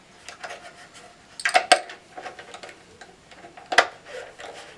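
Small metallic clicks and clinks of a nut driver fitting and turning hex nuts onto the potentiometer shafts of a Marshall Valvestate amp's metal front panel. Two sharp clinks come close together about one and a half seconds in, and another near the end.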